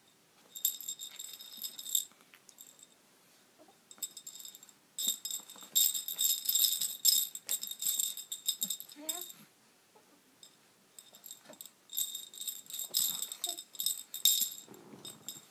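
Small bells jingling in three shaken bursts, like a bell rattle toy or jingling tags being shaken. A few brief gliding squeaky vocal sounds come in around the middle and again near the end.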